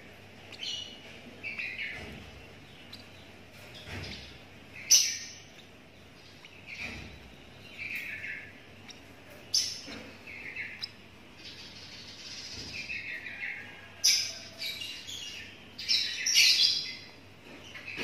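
Lovebird chick, about 17 days old, giving short, high chirping calls again and again at irregular intervals, a few of them sharper and louder.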